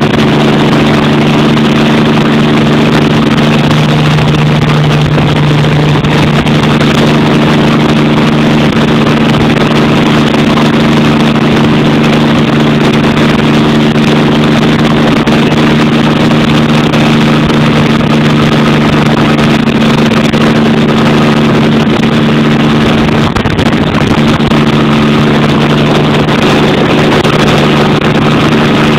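Helicopter in steady flight, heard from inside the cabin: engine and rotors running at a constant pitch, a loud steady hum of several tones over a rushing noise.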